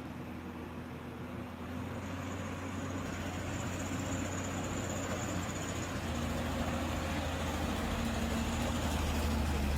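A large machine's engine running steadily under a low drone, slowly growing louder.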